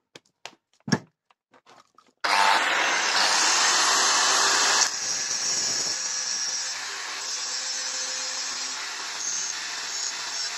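Electric angle grinder with an abrasive disc, started about two seconds in and grinding the edge bevel into a steel knife blade, throwing sparks. It is loudest for the first few seconds, then runs on a little quieter with a steady motor hum.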